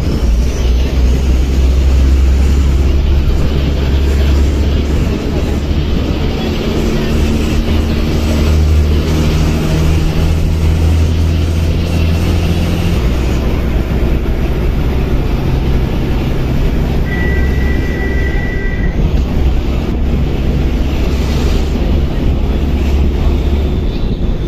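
Bus engine running with a steady low drone and road noise, heard from inside the moving bus; the engine note drops about halfway through. A brief high tone sounds about two thirds of the way in.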